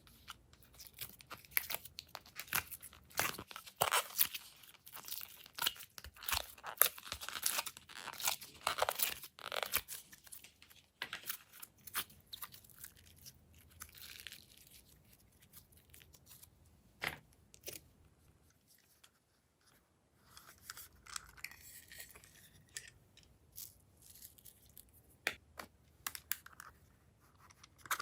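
Glossy slime being stretched and pressed by hand, giving irregular sticky crackling and tearing pops. Dense for the first half, it thins out in the middle and resumes more sparsely near the end.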